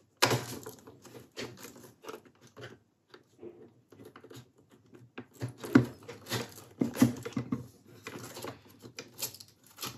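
Plastic clicks, taps and rustling from handling a 1984 VW Rabbit instrument cluster as the tabs of its main connector are pushed in. Irregular, with louder knocks in the second half.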